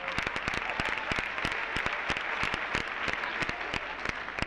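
Applause: many hands clapping steadily, a dense run of claps from the audience and the cast on stage.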